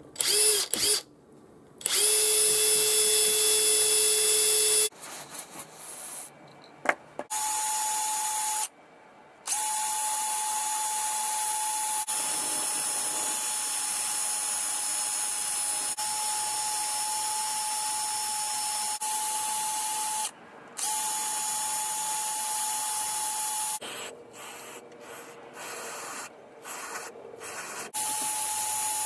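Cordless Makita TD171D impact driver's motor running with no load, a steady whine with no hammering. It runs briefly at a lower speed, then at a higher speed in long pulls of the trigger with short stops between.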